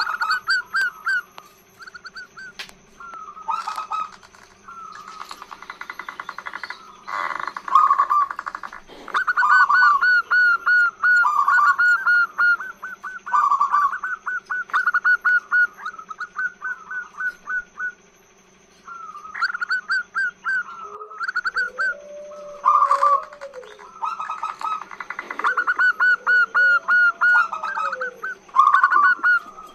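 Zebra doves (perkutut) singing: repeated runs of rapid, staccato cooing notes, phrase after phrase, with a brief pause a little past the middle. Two lower, drawn-out coos come in the second half.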